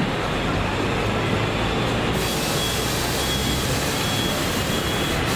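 Steady rumble aboard a Hong Kong double-decker tram, heard from the upper deck together with the surrounding street traffic. From about halfway, a faint high tone repeats in short dashes.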